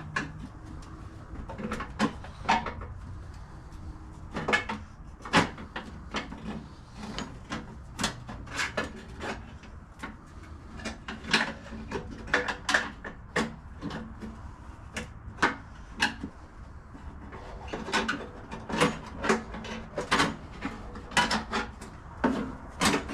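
Irregular clicks, knocks and clinks of hand tools and metal parts being handled while a snowblower is taken apart.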